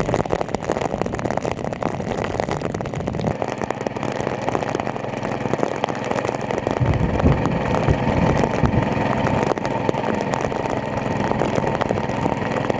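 Small engine-driven water pump running steadily, with a heavier low rumble for a couple of seconds about seven seconds in.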